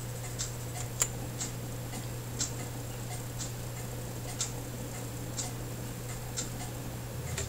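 Soft, even ticks about once a second, steady like a clock, over a low steady hum.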